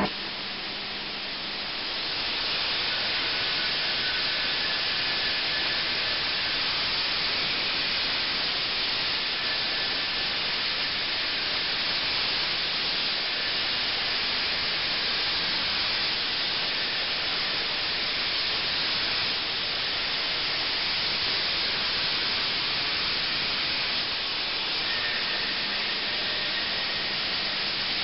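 Flood coolant spraying and splashing inside the work enclosure of an Okuma Genos L300E-M CNC turning center as it cuts a spinning part: a steady hiss that swells about two seconds in. A faint high tone comes and goes.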